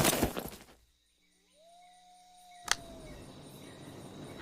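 A shout cuts off, followed by a second or two of near silence with a faint held tone, a single sharp click, then faint steady outdoor background noise.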